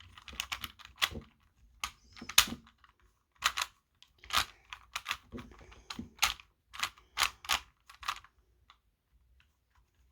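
Rubik's 3x3 cube being turned fast, its plastic layers clicking and clacking in irregular runs of sharp clicks while a last-layer algorithm is run; the clicks thin out near the end.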